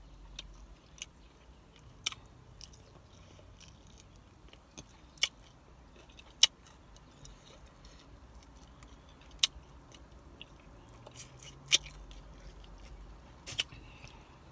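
A person chewing and biting into bone-in chicken wings close to the microphone, with sharp wet mouth clicks and smacks coming at irregular intervals.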